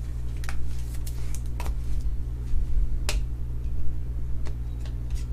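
Trading cards being handled by hand: a handful of light clicks and rustles over a steady low hum.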